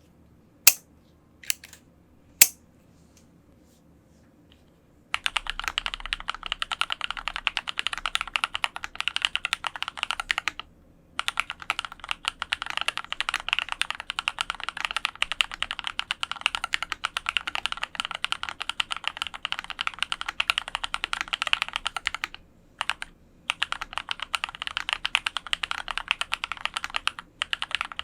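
Fast typing on a custom mechanical keyboard with lubed linear red switches (Kailh red stems in Cherry black housings) on an aluminum plate, with Hammerworks R4 keycaps. A few single clicks come first, then steady rapid typing from about five seconds in, broken by brief pauses.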